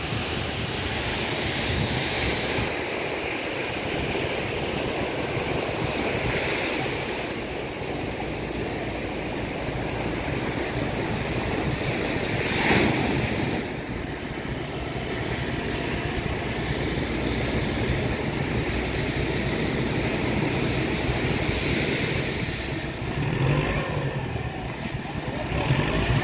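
Surf washing on the beach and wind on the microphone, with an engine running steadily underneath and a brief louder rush about halfway through.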